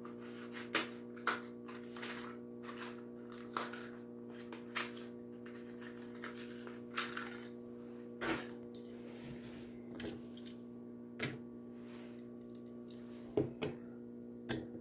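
Steady low hum of a motorised display turntable turning, with scattered light clicks and taps of handling. A small diecast truck is set down on it with a few clicks near the end.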